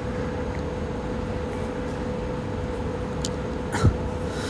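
Steady background noise with a constant low hum, and one brief knock near the end.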